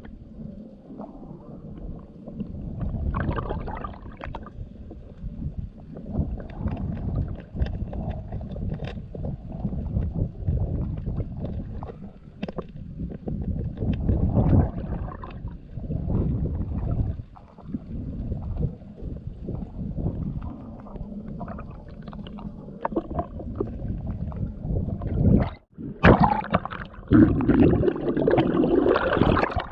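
Underwater sound of a flowing river: a low, churning rumble of current and gurgling, with scattered small clicks and knocks. Near the end it cuts out for an instant and comes back louder and brighter.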